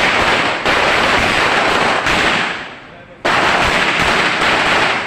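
Gunshots at a shooting range, loud enough to overload the recording. Two shots hit hard, about half a second in and again a little past three seconds, and each leaves a long hiss that dies away over a couple of seconds.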